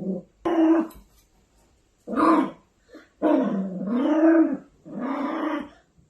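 Maltipoo puppy growling and barking in four short angry bursts, the third one longer and wavering in pitch.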